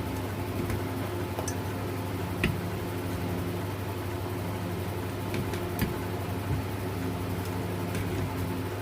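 A steady mechanical hum with a few sharp clicks and taps.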